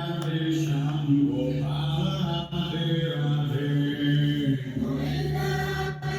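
A song played loud through a boAt speaker: held sung vocals, chant-like, over a steady low bass drone.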